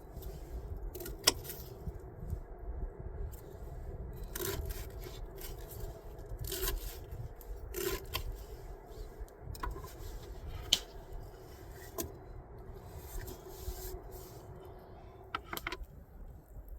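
Camp cooking handling: scattered light scrapes and clicks of utensils and food being moved about, over a steady low rumble.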